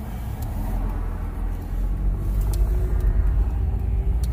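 Car engine and road rumble heard from inside the cabin, building in level, with a faint engine note slowly rising in pitch in the second half as the car gets moving.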